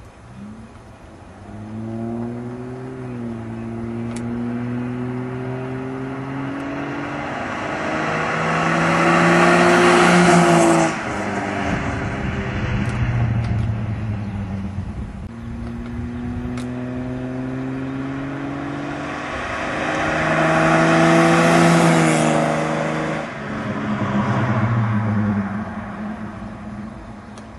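Ford XF Falcon wagon's 4.1-litre straight-six, running on straight LPG, revving hard through two long runs. Each time the engine note climbs in pitch and gets louder, then drops off suddenly.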